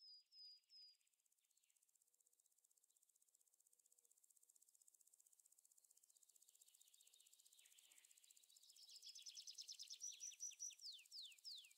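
Faint, high-pitched birdsong. It opens with a few short chirps, goes into a rapid trill that grows louder, and ends in a run of quick downward-sliding whistles.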